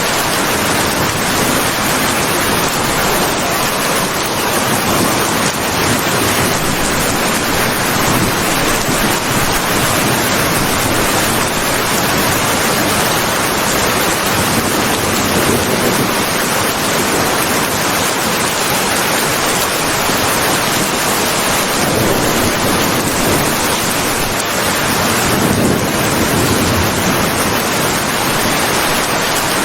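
Heavy rain falling steadily: a dense, even hiss with no single drops or thunderclaps standing out.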